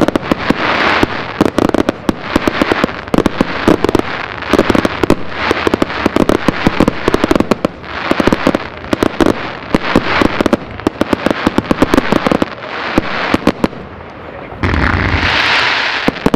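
Fireworks display: dense, rapid crackling and popping from crackling-star shells, coming in waves. Near the end a louder, steadier rush sets in as new shells go up and burst.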